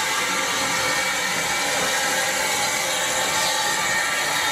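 Steady hiss of steam from a small saddle-tank steam locomotive's open cylinder drain cocks as it moves slowly off.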